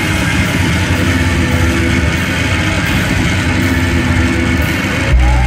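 Instrumental post-rock band playing loud live: a dense wall of electric guitars over sustained low bass, with held notes returning every second or so. About five seconds in, a deep bass note comes in suddenly, with sliding tones above it.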